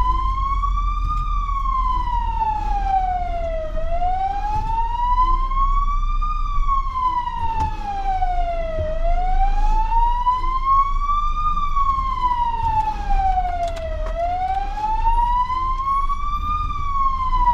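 Fire engine's wail siren heard from inside the cab: a slow rising and falling tone, each climb and drop taking about five seconds, over a steady low rumble of the truck's engine and road noise.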